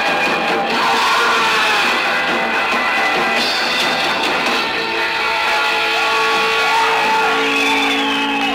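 Punk rock band playing live on a lo-fi audience recording in a large hall, with guitars. Over the last few seconds long held notes ring steadily under the music.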